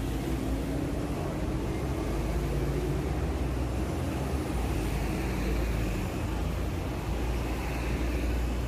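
Steady city street traffic noise: a low, continuous rumble of buses and cars running along a busy road.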